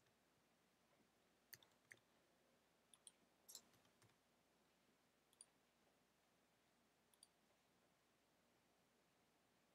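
Near silence with scattered faint computer keyboard keystrokes and mouse clicks, most of them in the first four seconds.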